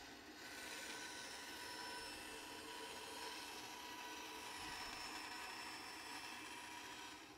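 Bandsaw running steadily as its blade rips a thin veneer strip off a white oak board fed against a single-point fence: a steady whir with a few faint whining tones.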